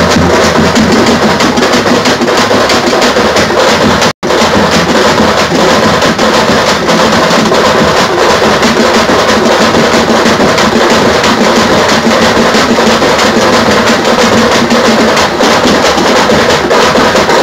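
Tamte (thappattai) frame-drum band beating a fast, loud, dense rhythm together, with large bass drums underneath. The sound drops out for a split second about four seconds in.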